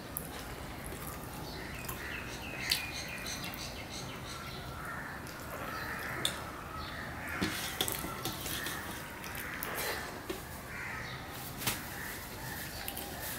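Hand eating from a stainless steel plate: fingers mixing and scraping rice against the steel, chewing and mouth sounds, with scattered sharp clicks. Several harsh calls come and go in the background.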